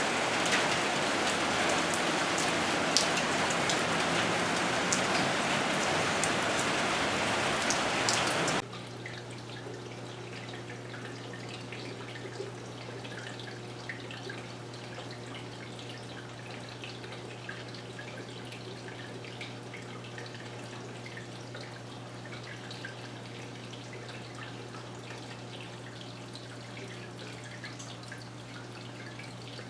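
Steady rain falling, with scattered drops tapping, until it cuts off abruptly about eight seconds in. After that comes a quieter steady low hum with faint scattered drips.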